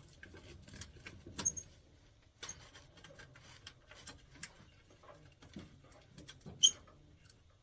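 Light scattered clicks, taps and scrapes of hand work on low-voltage wiring at a furnace control board, with one sharper click about seven seconds in.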